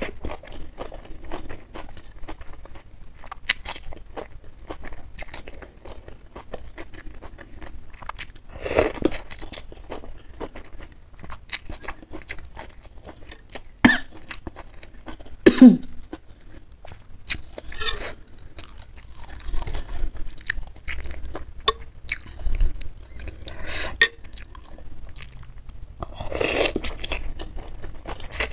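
Close-up eating sounds of rice vermicelli noodles in spicy beef meatball soup: wet chewing and mouth clicks throughout, broken by several long slurps of noodles. A little past halfway comes one short low sound that drops in pitch.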